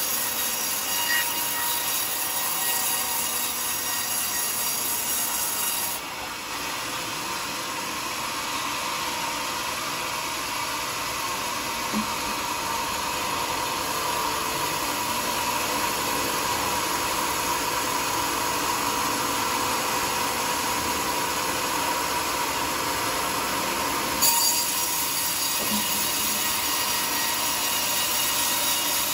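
Homemade band sawmill running, its blade cutting lengthwise through a large teak log with a steady sawing noise. The noise drops a little about six seconds in, and a brief knock comes near the end.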